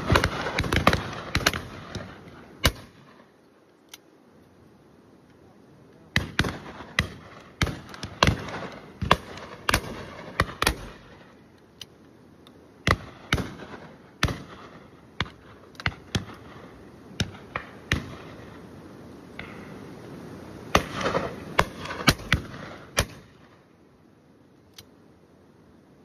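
Shotguns firing at driven game birds, many irregular shots, some close and loud, others fainter further along the line, coming in bunches with short lulls between, as a drive is in full swing. The shooting dies away near the end.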